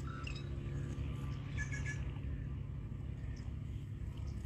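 Low, steady background rumble with no speech, joined by a few faint short chirps about a second and a half in.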